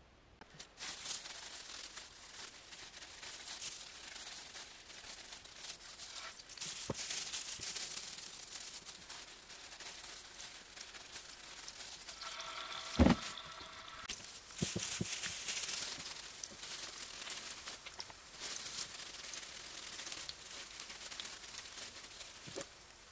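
Hot oil in an electric skillet sizzling and crackling as breaded patties are laid in, starting about a second in. A single sharp knock with a short ring, the loudest sound, comes a little past halfway.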